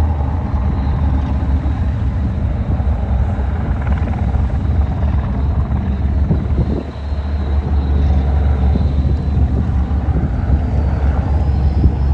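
Loud, steady low rumble of a powerful engine, dipping briefly about seven seconds in.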